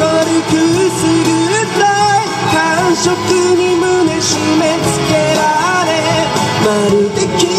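A man singing a song live while strumming an electric guitar, both amplified through a PA speaker.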